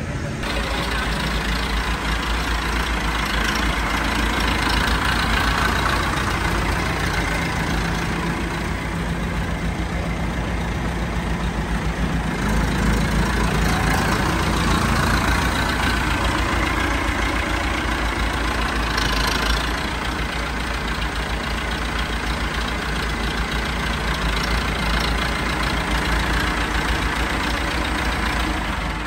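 ATS 290 tractor's diesel engine running, a steady low, evenly pulsing beat with no break.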